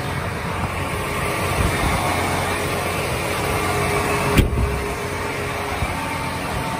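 John Deere 7R330 tractor's 9-litre six-cylinder diesel idling steadily, with a single sharp click a little over four seconds in.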